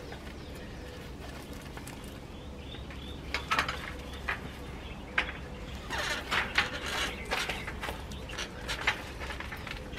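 Irregular rustling and scraping handling noises in short bursts, starting about three seconds in, as the solar fan's panel and cord are put up on the wire-and-wood hutch roof, over a low steady hum.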